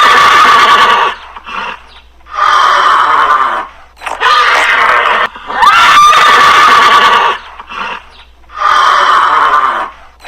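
Horse neighing: a series of about five loud whinnies, each a second or so long, with short pauses between.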